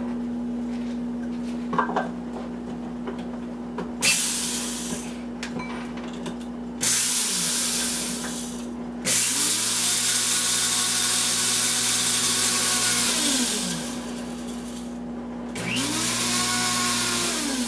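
Small electric blade grinder run in four separate pulses with rests between, the longest about four seconds, each ending in a falling whine as the blades spin down. The pauses are meant to spare the motor, which she has heard wears out quickly if run nonstop.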